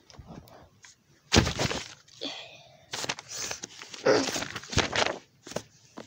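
Torn paper pages from a math book being handled and gathered up, heard as several short bursts of rustling and thumping with quiet gaps between, the loudest about a second and a half in.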